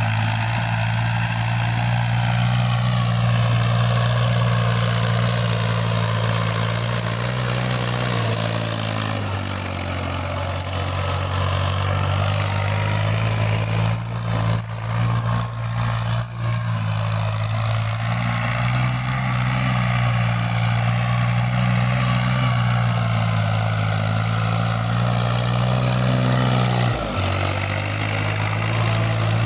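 Diesel tractor engine running steadily while working a field. Its speed sags for a couple of seconds about a third of the way through and again briefly near the end, as it takes on load. A few knocks or clatters come about halfway.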